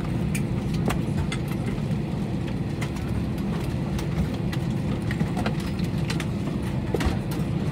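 Steady low rumble inside the cabin of an Airbus A321 taxiing slowly, its CFM56 engines at idle, with scattered light clicks.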